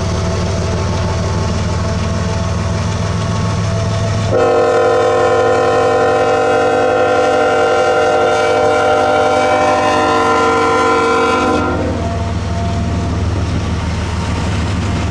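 CN locomotive's Nathan K5HL five-chime air horn sounding one long blast of about seven seconds, starting about four seconds in and cutting off sharply, over the steady low rumble of the passing train.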